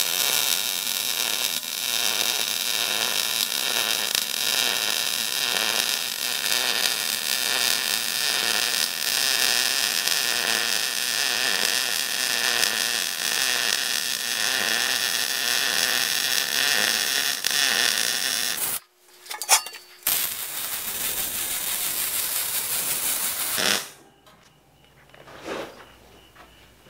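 Wire-feed welder's arc crackling steadily through a long weld bead on steel tubing, stopping about 19 seconds in; after a short pause a second, shorter bead runs for about four seconds, then only faint small handling sounds.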